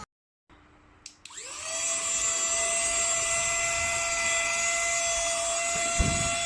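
Small USB handheld vacuum cleaner switched on with a click, its motor spinning up with a rising whine and then running steadily at a high, even pitch.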